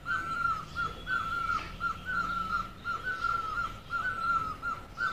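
A bird calling over and over: short, clear notes at one pitch, two or three a second, without a break.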